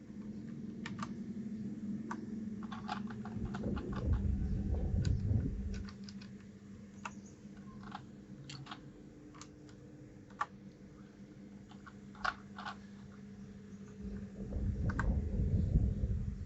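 Mechanical keyboard keys clicking in scattered, irregular taps, over a steady low hum. Two stretches of louder low rumbling noise come about four seconds in and near the end.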